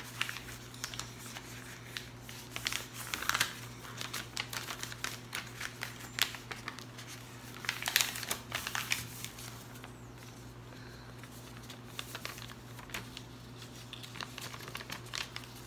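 A sheet of paper being folded and creased by hand into a paper airplane: irregular crinkles and rustles, thinning out for a few seconds past the middle.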